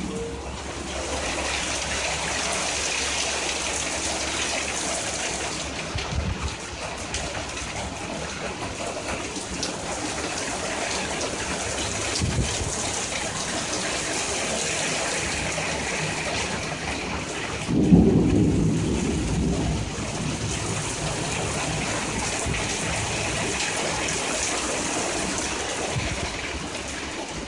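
Steady heavy rain falling, with two short low thumps and, about two-thirds of the way through, a louder low rumble of thunder that fades over a couple of seconds.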